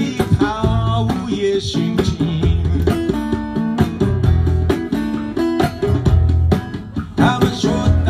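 Live acoustic guitar played with singing, over a steady low beat.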